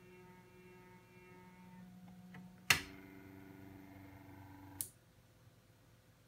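Small stepper motor driving the drawbridge model, with a faint steady whine of several tones. About two and a half seconds in, a sharp loud click sounds. A different steady whine follows for about two seconds and ends with a second click, after which it goes quiet.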